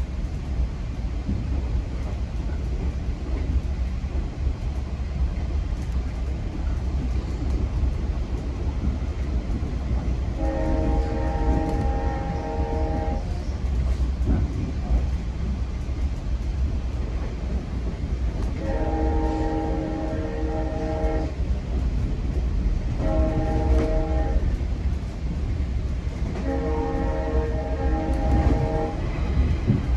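GO Transit commuter train's horn sounding the grade-crossing signal, two long blasts, a short one and a long one, each a chord of several tones. Under it the train runs on the rails with a steady rumble.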